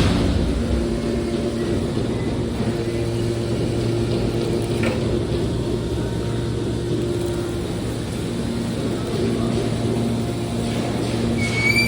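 Scrap metal baler press running with a steady machine hum. A short high-pitched metallic squeal comes near the end.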